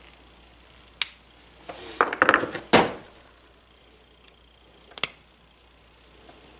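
Hand tools and small metal parts handled on a workbench: a sharp click about a second in, a burst of clattering knocks between two and three seconds in, and another sharp click about five seconds in.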